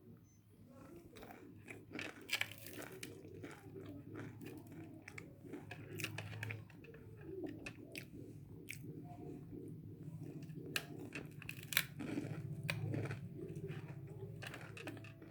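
Close-up chewing and biting of crispy fried onion fritters (piaji), with many sharp, irregular crunches over a steady low hum.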